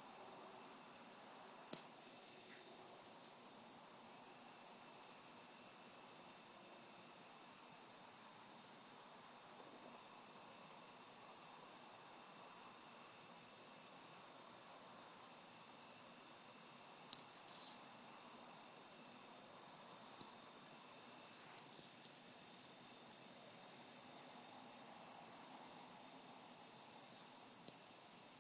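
Faint, steady high-pitched chirping of night crickets, pulsing quickly and evenly, over low hiss. A few sharp clicks and knocks are scattered through it.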